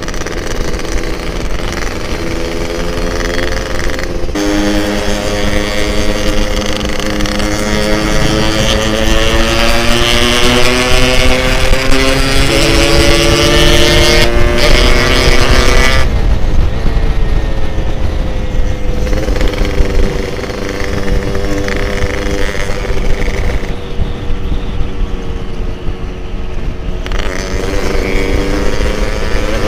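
Yamaha RX-King two-stroke single-cylinder motorcycle engine under way, its carburettor not yet re-tuned. The revs climb slowly over the first half, with short breaks about four and fourteen seconds in. The engine then drops back to a steadier, quieter run, with wind rumbling on the microphone.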